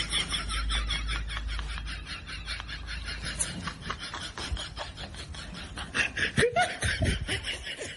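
Snickering laughter: a quick run of short laughs repeating throughout.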